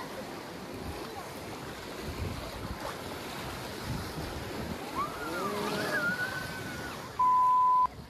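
River water rushing through rapids around a boat, with excited voices calling out about two-thirds of the way through. Near the end a loud steady censor bleep lasts just under a second.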